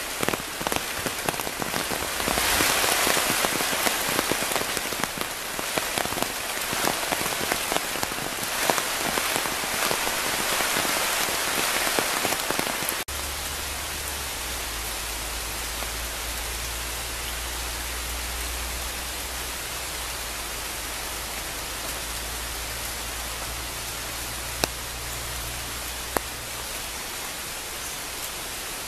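Heavy rain pouring down on dense foliage, loud and uneven with many close drops. About thirteen seconds in it cuts abruptly to a steadier, softer rain hiss with a low hum underneath. Two sharp ticks come near the end.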